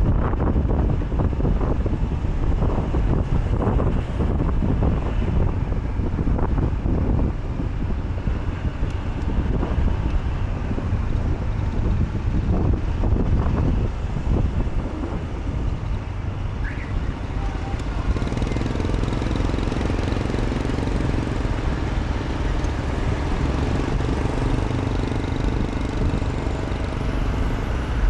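Wind buffeting the microphone over engine and road-traffic noise from a moving vehicle. About two-thirds of the way through, the buffeting eases and a steadier engine hum with traffic takes over.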